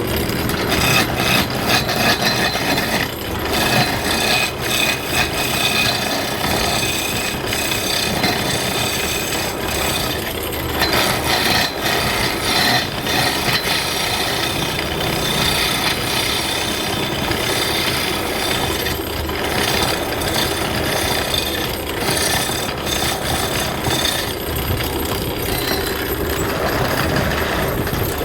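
Wood lathe turning a plywood blank while a turning tool cuts into the spinning wood: a continuous rough scraping and rasping.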